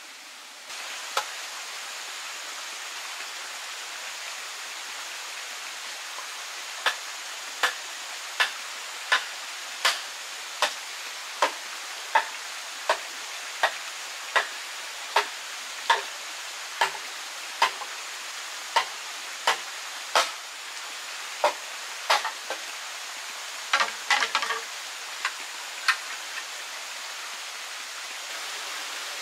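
Machete chopping at a green bamboo pole: sharp, regular strikes a little faster than one a second, with a quick flurry of strikes a few seconds before the end, over a steady hiss.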